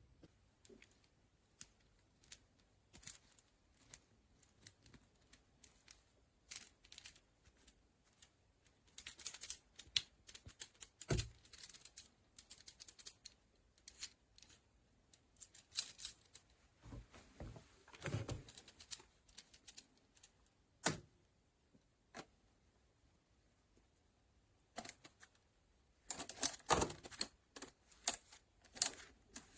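Irregular clicks, clacks and taps of small hard parts being handled, coming in scattered clusters with short quiet gaps between them, the busiest bunch near the end.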